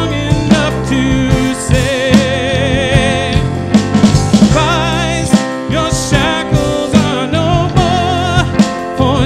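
Live worship band playing a song on drum kit, electric bass, electric guitar and keyboard, with a voice singing over it.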